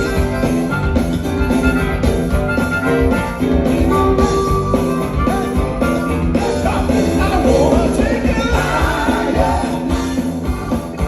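Live funk band playing, with drums and bass keeping a steady beat under held melody notes. In the second half a lead line comes in that bends up and down in pitch.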